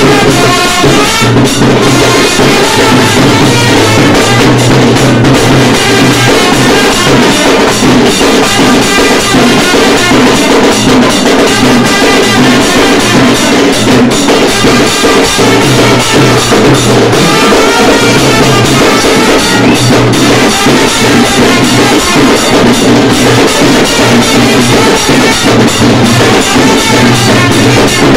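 Loud dance music with a driving kavadi drum beat and a melody over it, steady throughout.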